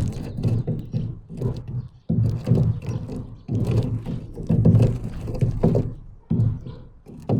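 Birds at a feeder close to the microphone, pecking and scrabbling: bursts of rapid taps and knocks over a low rumble, broken by short pauses.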